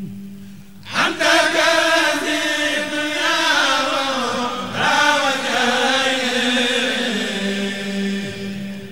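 A group chanting a Mouride khassida, a Sufi devotional poem in Arabic, in unison and unaccompanied. A low held note sounds alone at first. The voices come in about a second in and break briefly for breath near the middle.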